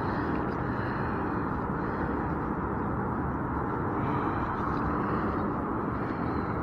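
Steady road traffic noise, an even hum with no single passing vehicle standing out.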